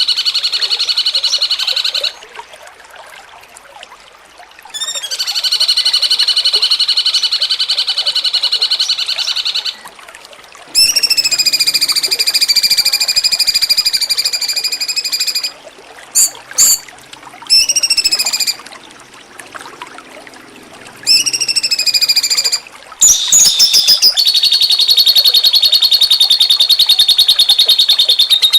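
Cucak cungkok singing in repeated buzzy, rattling trilled phrases of a few seconds each, separated by short gaps. Some phrases drop in pitch at their ends, and a long, rapidly pulsing phrase starts near the end.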